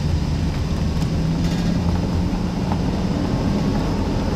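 A vehicle's engine running with a steady low hum.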